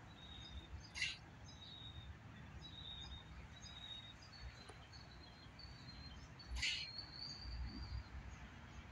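Small birds chirping faintly: short, thin, high notes repeated every second or so, with two short harsh calls, one about a second in and another a little past the middle.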